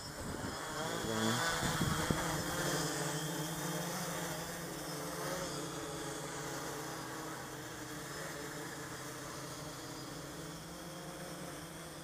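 Quadcopter's electric motors and propellers running in flight, a steady multi-tone buzzing hum that is loudest about a second or two in and then slowly fades as the craft climbs away.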